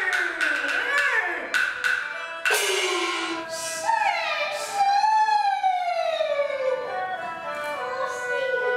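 Kunqu opera music: quick clapper and drum strikes in the first two seconds over a held high instrumental tone, then long sliding notes that fall in pitch.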